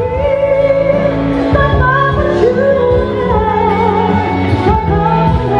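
Background music with singing.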